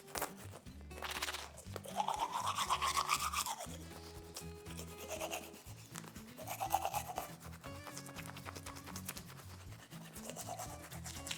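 Toy toothbrush scrubbing back and forth over Play-Doh teeth in several short bouts, over background music.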